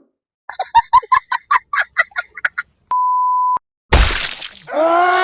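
A string of meme sound effects. First comes a quick run of short, high, chattering pulses. About three seconds in there is a short, steady censor bleep. Then comes a loud crash-like burst, followed by a long, drawn-out wailing cry.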